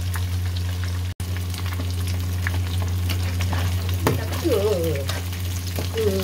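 Indian mackerel frying in hot oil: a steady sizzle with scattered crackles and pops of spattering oil, the sharpest pop about four seconds in, over a steady low hum. The oil pops like this when the fish is nearly cooked.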